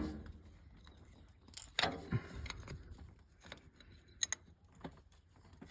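Scattered metal clinks and clicks of a spanner and bolts being worked and handled, with sharper knocks about two seconds in and about four seconds in.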